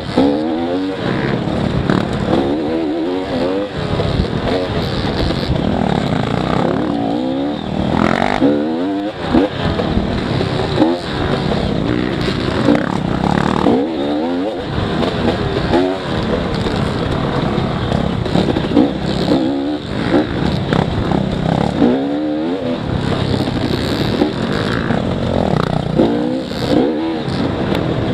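Dirt bike engine ridden hard on a rough trail, its pitch repeatedly climbing and dropping as the throttle opens and closes, with occasional knocks and rattles from the bike over the bumps.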